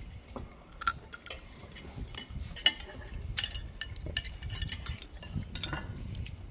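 Cutlery and dishes clinking at a meal: irregular light clicks and chinks of utensils against plates and bowls, over a low rumble.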